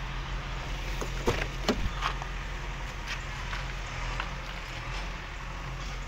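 Front passenger door of a Maruti Swift Dzire being opened: a few light clicks and knocks in the first couple of seconds, over a steady low hum.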